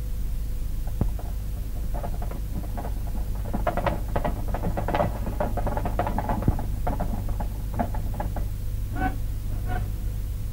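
Hooves of several horses clattering on stone paving in an irregular patter of clicks, thickest in the middle and thinning out near the end, over a steady low hum.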